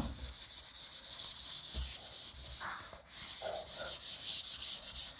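A chalkboard eraser wiping chalk off a chalkboard in quick, even back-and-forth strokes, with a short break about three seconds in before the wiping resumes.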